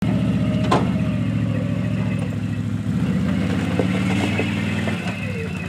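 Can-Am Outlander ATV engine running steadily at an even, low speed, with one sharp click about a second in.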